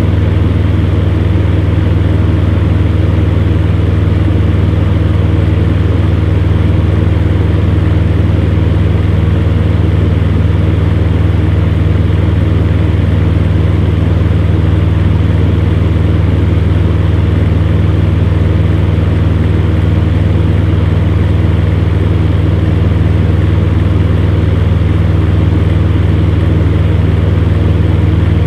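Electric fan running steadily, a low even hum under a whooshing of moving air.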